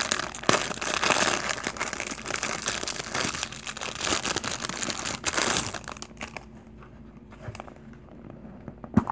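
Crinkly clear plastic wrapping being pulled off a plastic macaron-shaped case, crackling for about six seconds. Then quieter handling of the case and a sharp click near the end.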